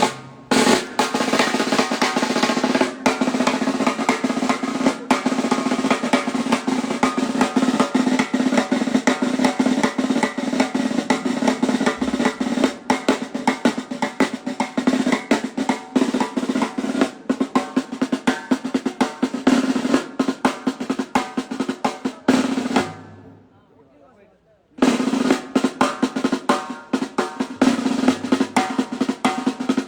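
Drum played in a fast continuous roll, the dense strokes carrying a steady ringing pitch. It breaks off about 23 seconds in for two seconds, then the roll starts again.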